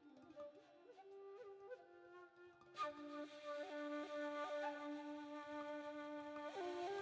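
Shakuhachi playing a slow melody in a five-note raga: long held notes joined by slides and small grace-note ornaments. It is soft at first, then louder and breathier from about three seconds in.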